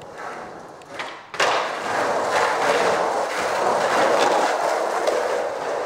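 Skateboard wheels rolling hard over rough pavement: a loud, gritty rolling noise that starts suddenly about a second and a half in, with scattered clacks as the board passes over cracks.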